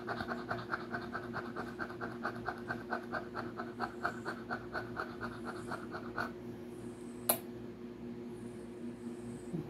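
Small dog panting quickly, about five pants a second, stopping about six seconds in, over a steady low hum. A single sharp click follows about a second later.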